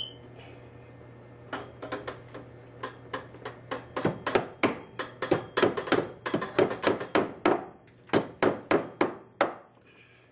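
Hammer driving a copper pipe hook into a wooden joist: a run of sharp strikes that starts about a second and a half in, quickens to about three a second and stops near the end.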